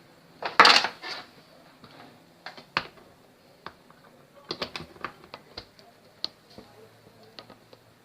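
Workbench handling noises from work on a CRT television: a loud clatter about half a second in, then scattered clicks and taps.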